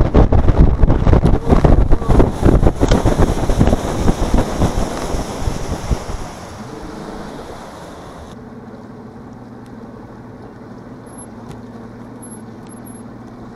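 Wind buffets the microphone with a loud, gusty rush as an outboard-powered boat runs at speed. About six seconds in it drops to a steady, much quieter low hum from the outboard motor as the boat slows.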